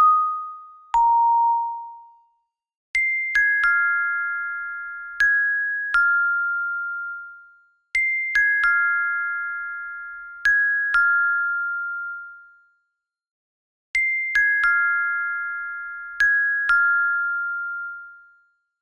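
Background music of clear, bell-like chime notes, each ringing and fading. A slow falling phrase of a few notes repeats about every five to six seconds, with short silences between phrases.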